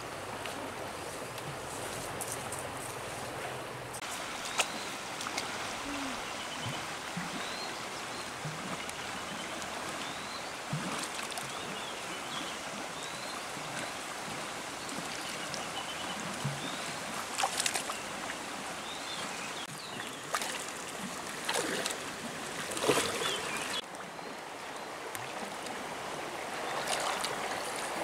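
Shallow river water flowing steadily over stones, with a few short splashes and sloshes from someone wading and reaching into the water, most of them in the second half.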